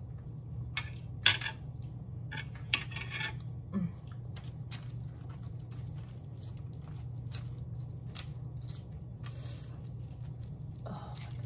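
Close-miked eating sounds. A spoon clinks against a plate several times in the first few seconds, the loudest knock about a second in. Then come softer clicks and short rustles as garlic naan is torn and used to scoop saag paneer, over a steady low hum.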